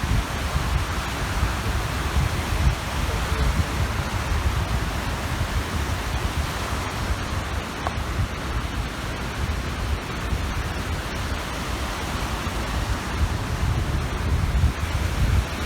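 Small waves washing steadily onto the shore of a large reservoir, with wind rumbling on the microphone.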